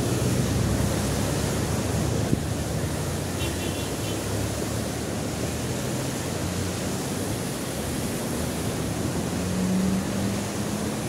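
Swollen, muddy river in flood rushing below a bridge: a steady, loud noise of fast churning water, the river in spate after heavy rains.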